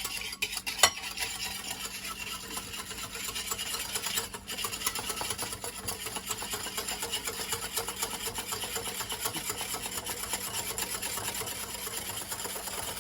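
Hand whisk beating instant coffee, sugar and water in a bowl for dalgona coffee: a fast, steady scraping rattle of the wires against the bowl while the mixture is still being worked toward froth. A sharp knock about a second in is the loudest sound, and the whisking breaks off briefly about four seconds in.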